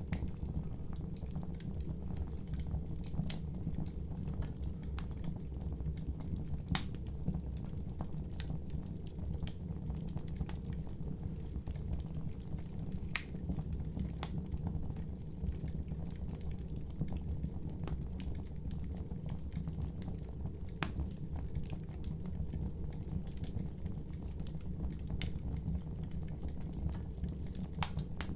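Wood fire burning, with a steady low rumble and scattered sharp crackles and pops; the loudest pops come about seven and thirteen seconds in.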